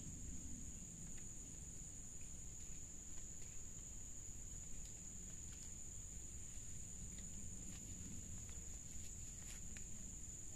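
Insects droning steadily at a high pitch, with a low rumble underneath and a few faint scattered clicks.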